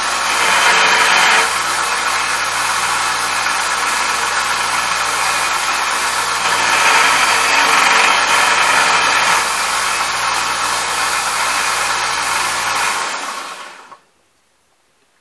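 Harbor Freight 1x30 belt sander running, its belt grinding the sprue off a cast brass rifle butt plate. The grinding gets louder for about the first second and a half and again for a few seconds midway. The sander is switched off near the end and winds down quickly to quiet.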